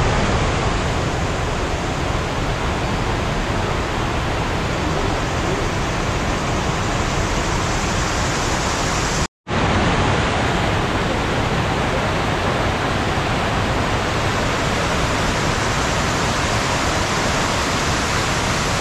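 Steady roar of rushing water from a waterfall, dropping out completely for a split second about nine seconds in.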